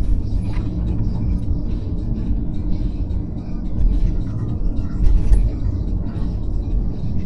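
Steady low rumble of a car driving on a highway.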